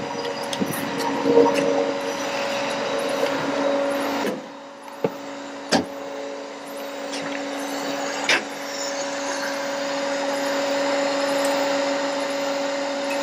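Ford F-550 bucket truck running with its PTO engaged, giving a steady, even hum that dips briefly about four seconds in. A few short knocks sound near the middle.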